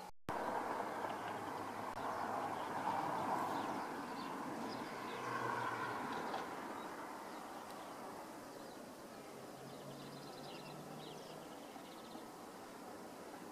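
Outdoor ambience: a steady rushing background noise, louder in the first half, with a few short bird chirps.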